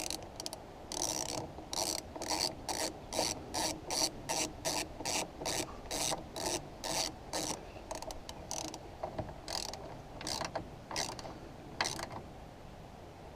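Ratcheting screwdriver clicking in short rattles on each back-stroke, about three a second, as a door trim screw is driven in. The strokes thin out to a few slower ones near the end as the screw seats.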